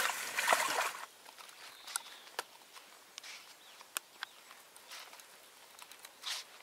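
Rustling and handling in a fabric carp cradle as a carp is laid into it, about a second of loud scuffling. Then a faint open-air background with a few scattered sharp clicks and a short rustle near the end.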